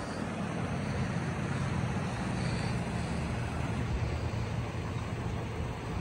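Steady low rumble of vehicles at a roadside: cars idling and road traffic, with no distinct events.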